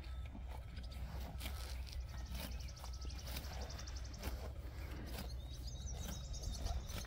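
Hereford steers grazing close by, tearing grass in a series of short crisp rips, with a bird giving a rapid high trill and a few chirps in the background.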